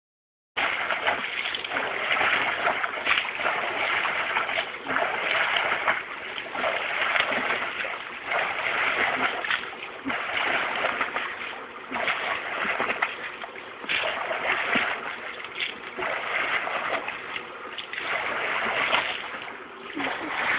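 Continuous splashing and churning of pool water as a child jumps up and down in an above-ground pool, surging and easing every second or two.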